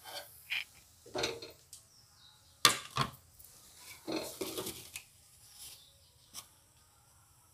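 Scattered clinks and knocks of a metal slotted spoon and utensils against a kadhai and a steel stove top, as a fried cutlet is lifted out and set down. The sharpest knock comes about two and a half seconds in.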